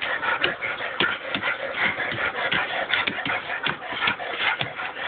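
Shepherd–Labrador mix dog playing tug-of-war with a rubber toy held in a hand: a continuous run of irregular scuffling and rustling, broken by many short, sharp scrapes.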